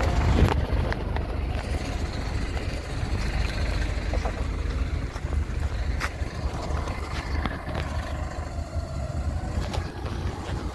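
PAZ 320414 city bus engine idling, a steady low rumble.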